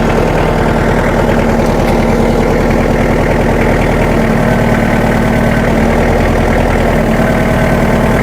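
A vehicle engine idling steadily and loudly close by, its regular firing pulses running without a break.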